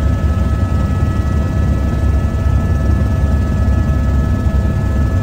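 Helicopter in flight heard from inside the cabin: a steady, loud low rotor and engine rumble with a few thin, even whining tones above it.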